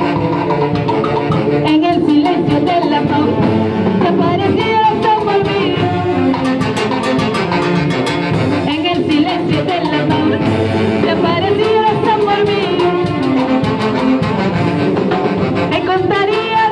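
A live band with a saxophone section and timbales playing, with a woman singing into a microphone over it through PA loudspeakers.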